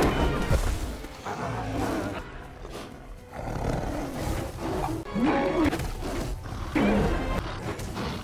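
Big cats roaring and snarling in a fight over film score music, with loud roars about five and seven seconds in.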